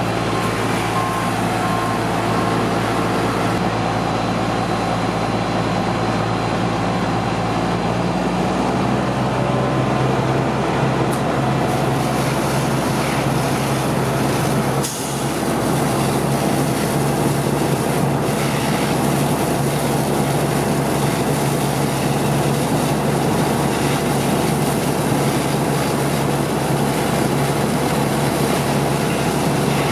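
Fire engine's diesel engine running steadily while it pumps water to a hose, with a constant hiss over a low drone; the engine's pitch steps up about eight seconds in.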